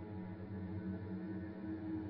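Ghostly moan sound effect: a low, sustained droning moan with steady overtones, swelling slightly.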